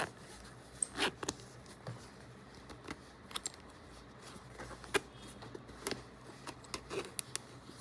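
Zipper on a fabric side bag being slid along, giving scattered clicks and short rasps. The slider has just been squeezed tighter with pliers, and this is the test of whether it now closes the teeth.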